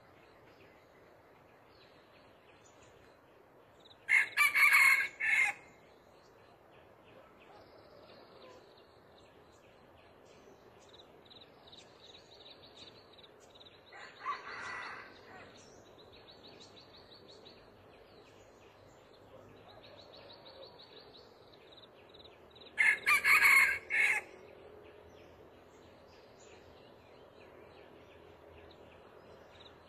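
Red junglefowl roosters crowing: two loud, short, choppy crows about four seconds in and again near the end, with a fainter crow in between. Insects buzz in short pulsing trains throughout.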